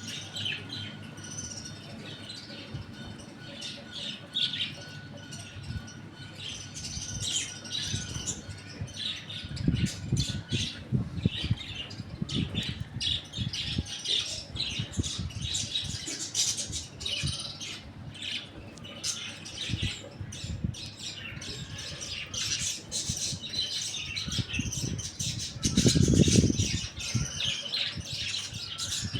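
Many birds chirping and squawking in quick, overlapping calls, with a few low rustling bursts, the loudest coming near the end.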